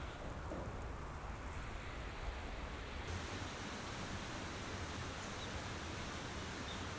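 Steady outdoor ambience: an even hiss over a fluctuating low rumble, with no distinct events. The hiss brightens abruptly about three seconds in.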